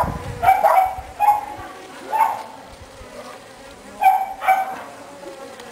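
Swarm of Africanized honey bees buzzing around a cardboard box: a faint steady hum, with individual bees passing close to the microphone in short, louder buzzes several times.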